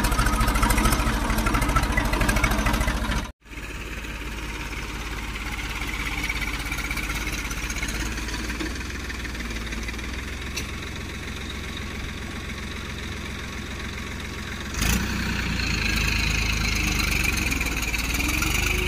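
Ford tractor's diesel engine running steadily while pulling a cultivator through a flooded paddy field to puddle it. The engine is loud and close for the first few seconds, cuts off briefly, then continues a little quieter and grows louder again about fifteen seconds in as the tractor comes nearer.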